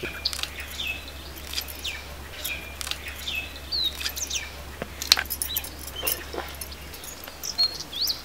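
Birds chirping, many short falling calls one after another, with a few sharp clicks as green chillies are sliced against an upright blade fixed in a wooden base. A faint low hum lies underneath.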